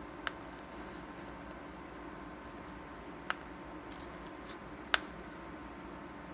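Three sharp clicks, the loudest about five seconds in, as gas-checked, powder-coated cast lead bullets are set down base-first on a metal bench top, over a steady faint hum.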